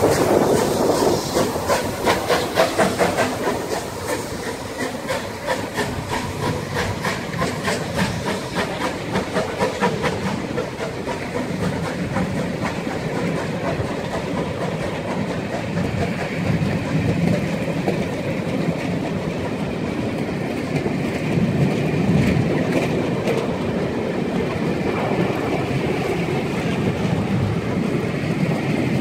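Rebuilt Bulleid Battle of Britain class steam locomotive 34052 pulling away, its exhaust beats and steam hiss passing close by in the first few seconds. Then a long train of coaches rolls past with a steady rumble, the wheels clicking over the rail joints.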